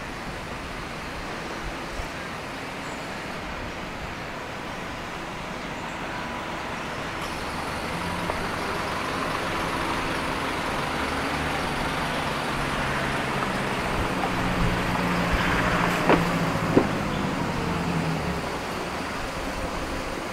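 Street traffic: a motor vehicle's engine grows louder from about eight seconds in and passes close by, its pitch dropping as it goes. Two sharp clicks come about sixteen seconds in.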